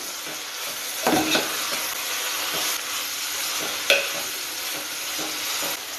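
Brinjal curry frying and sizzling in a steel pot while a steel ladle stirs it, a steady hiss with two sharper knocks, about a second in and just before four seconds.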